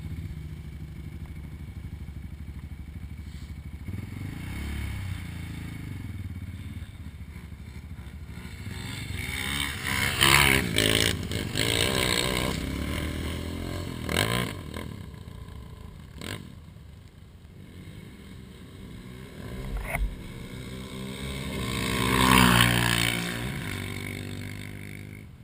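ATV engines revving hard in a sand hill drag race, with loud bursts of acceleration about ten seconds in and again near the end, each rising in pitch and then fading away.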